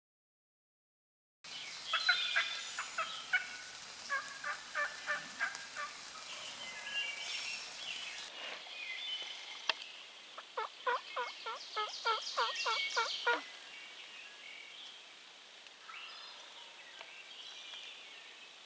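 Wild turkey calling: runs of short, evenly spaced yelping notes at about three a second, with gobbling. They begin about a second and a half in; the clearest run lasts about three seconds near the middle, and fainter calls follow.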